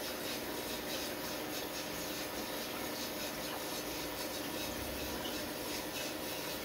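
Steady running noise of aquarium equipment: a pump's low hum with a hiss of moving water and air.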